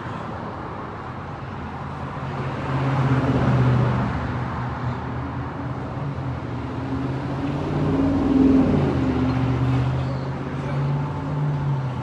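A motor vehicle's engine humming steadily, swelling louder about three and a half seconds in and again about eight and a half seconds in.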